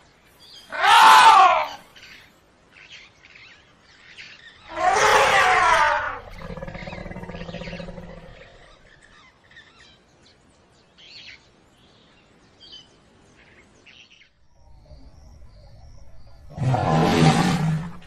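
African elephant trumpeting: three loud calls about a second, five seconds and seventeen seconds in, each rising then falling in pitch, with a lower, steadier rumbling call right after the second.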